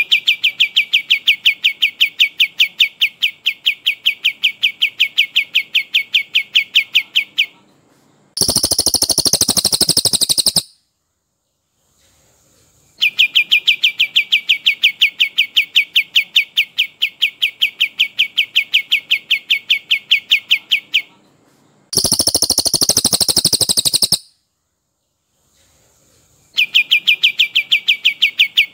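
Recorded songs of a brown cililin and a kapas tembak, alternating. One bird gives a long rolling series of quick, even, whistled notes, about six a second, for seven or eight seconds. It is followed by a loud, harsh, rattling burst of about two seconds. The pair repeats twice more, the third roll starting near the end.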